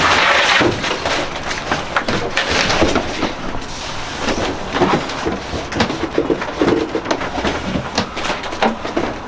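Irregular knocks, scrapes and rustling as a new Isotherm refrigerator is worked into its cabinet opening.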